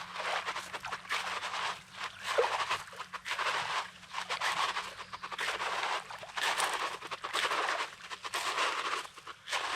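Footsteps crunching on coarse, pebbly beach sand, a regular walking pace of a little over one step a second.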